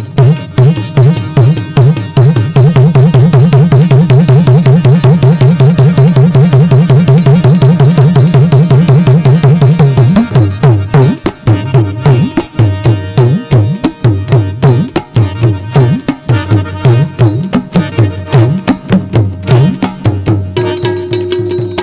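Tabla solo. A very fast, even roll of strokes runs for several seconds, then breaks into a looser, syncopated pattern. Near the end a held melodic note comes in underneath.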